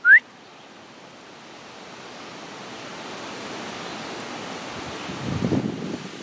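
A short rising whistle at the very start, then a gust of wind through leafy trees, swelling gradually into a steady rustle of foliage. Louder, rougher rustling comes near the end.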